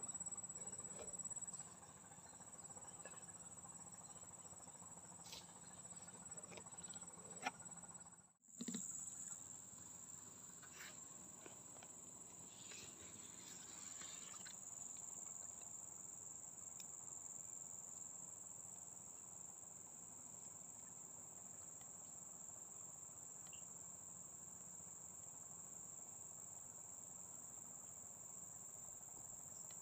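Faint, steady high-pitched drone of insects calling in the vegetation. There are a few light clicks in the first eight seconds, and the sound briefly drops out about eight seconds in.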